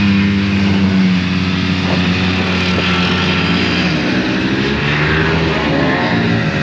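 Two-stroke snowmobile engine running at steady revs, its pitch dropping about four seconds in and then rising and falling as the throttle changes.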